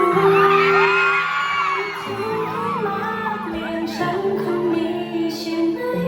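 Slow pop-ballad backing music with steady held chords, over which many fans scream and whoop in high overlapping voices, heaviest in the first two seconds and thinning after.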